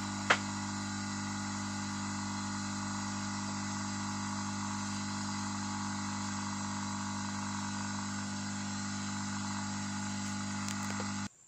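Steady buzzing mains hum from bench electrical equipment, with a sharp click just after the start. The hum cuts off abruptly near the end.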